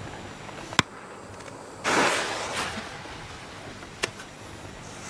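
Firecrackers going off: a sharp crack about a second in, a short rushing burst of noise a second later, and another sharp crack about four seconds in.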